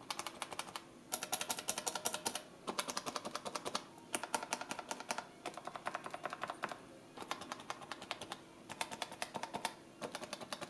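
Cherry MX mechanical keyboard switches in a plastic holder being pressed one after another, each pressed rapidly several times: runs of quick clicks about a second long with short pauses between.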